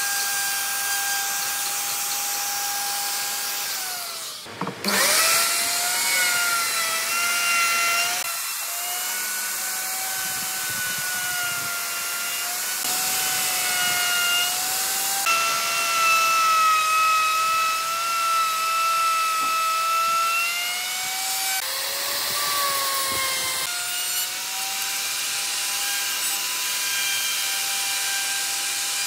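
An electric woodworking power tool whining steadily as it cuts wood, its pitch sagging and recovering under load. The sound breaks off abruptly and picks up again several times.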